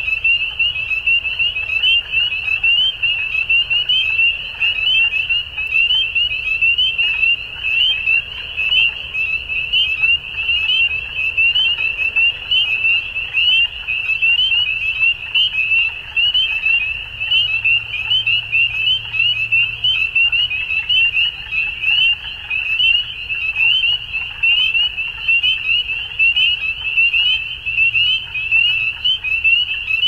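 A dense spring chorus of many frogs calling at once: a steady mass of high, rapid, overlapping peeps.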